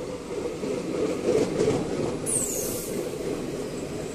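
Coaches of the Sainagar Shirdi Express (17206) running past close alongside on the adjacent track: a steady rumble of wheels on rail that swells about a second in, with a brief high squeal a little past the middle.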